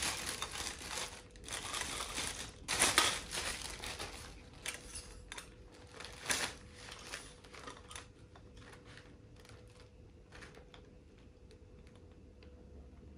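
A 51-inch tripod being set up by hand: clicks and clatter as its legs are extended and locked and its head is fitted. The sharpest clicks come about three seconds in and about six seconds in, and the handling thins to occasional small clicks in the second half.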